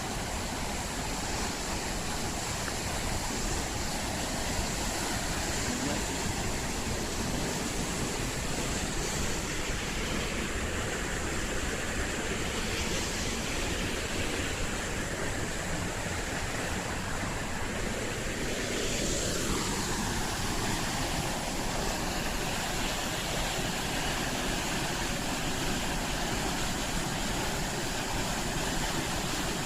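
Whitewater rushing steadily, as at river rapids or a waterfall.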